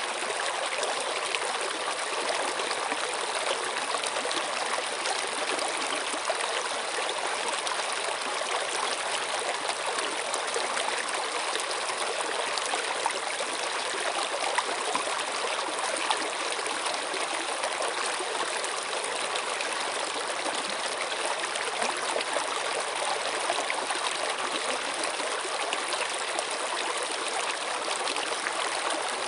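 Running water of a stream flowing steadily, a continuous rushing with fine splashing and trickling and little deep rumble.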